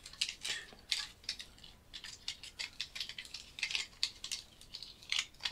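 Copper winding wire being unwound by hand from a transformer's bobbin: a run of quick, irregular scratchy crackles.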